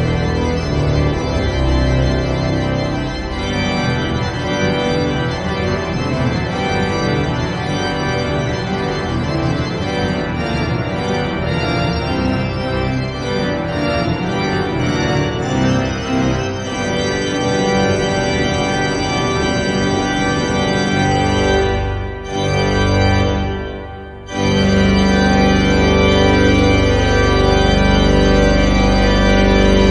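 Organ playing with manuals and pedals: a fast, dense passage of changing chords, two brief breaks about three-quarters of the way through, then a loud full chord held over deep pedal bass.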